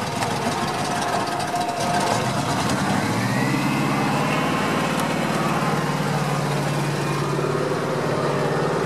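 GAZ-66 truck's engine running steadily while its front winch reels in the cable. A whine rises about three seconds in, and the engine note then holds firmer.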